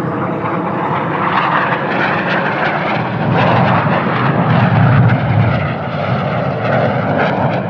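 BAE Hawk T1 jets flying past, the engine noise swelling to its loudest about five seconds in and then easing off.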